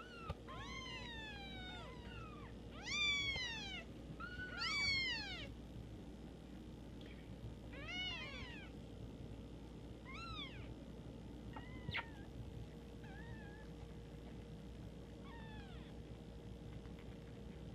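Young kitten mewing: a series of about seven high cries that rise and then fall in pitch, the loudest two around three and five seconds in.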